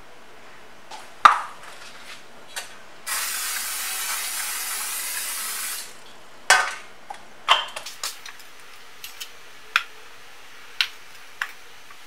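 Aerosol canola oil cooking spray hissing in one steady burst of about three seconds as it coats a round metal cake pan. Sharp knocks and clicks come before and after it, the loudest about a second in, then a few lighter ones near the end.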